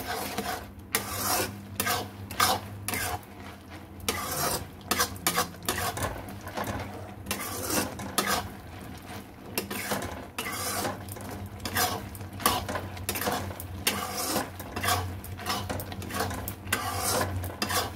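Plastic spatula stirring and scraping boondi through sugar syrup in a nonstick kadhai, in quick repeated strokes.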